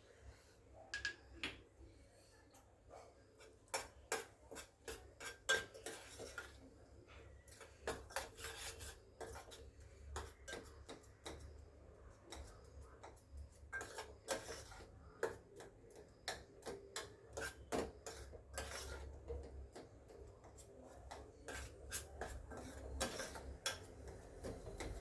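A metal spoon scraping and clinking against a pan while stirring a thick, sticky jaggery, coconut and lentil filling as it cooks down, with irregular scrapes and taps.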